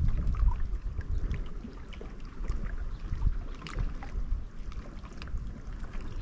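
Wind buffeting the microphone on a boat, a fluttering low rumble strongest near the start, with faint scattered small ticks.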